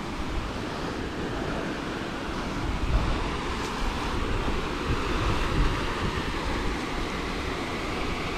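Wind buffeting the microphone outdoors: a steady rushing noise with a deep, uneven rumble and stronger gusts about three and five and a half seconds in.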